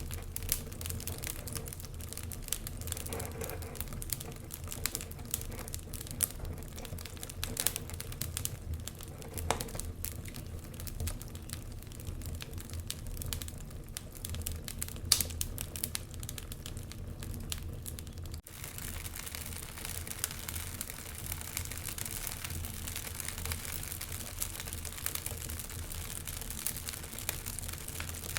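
Wood fire crackling in a fireplace: frequent sharp pops and snaps over a low rumble. About eighteen seconds in the sound dips for a moment, then carries on as a denser, hissier crackle with fewer loud pops.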